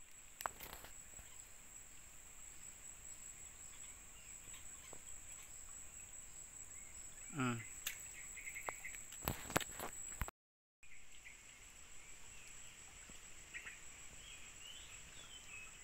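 Faint steady high-pitched insect drone, with a few sharp clicks and one short call that falls steeply in pitch about seven seconds in.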